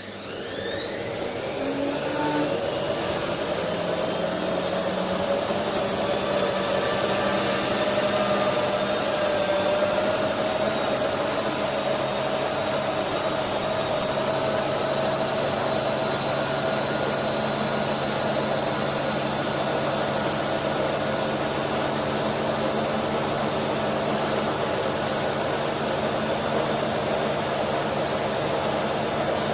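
Laundry machine's motor starting up: a rising whine that climbs over the first five seconds or so as the drum spins up, then a steady running hum and whir.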